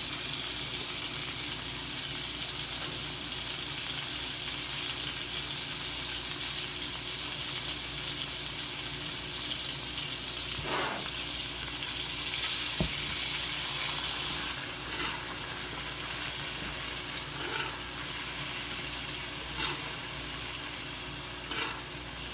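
Thick steaks frying in butter and oil in a hot skillet, heard up close: a steady sizzle with a few short crackles. A sharp click a little past halfway.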